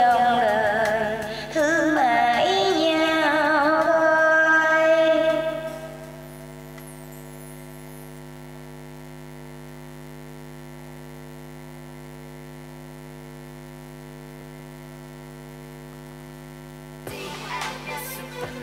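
The karaoke song's last held melody note, with vibrato, fades out about six seconds in. It leaves a steady electrical hum from the karaoke sound system. Music starts up again near the end.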